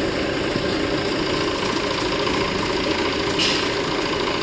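An engine or motor running steadily with a rapid, even rattle. There is a brief hiss about three and a half seconds in.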